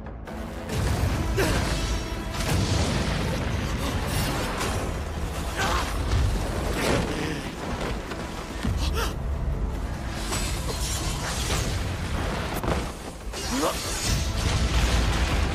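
Anime fight soundtrack: dramatic music under repeated sword clashes, impacts and whooshes, with sharp strikes scattered all through.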